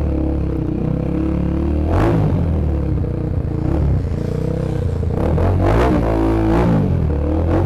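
Motorcycle engine running as the bike rides off, with its pitch climbing and falling as it is revved through the gears about five to seven seconds in.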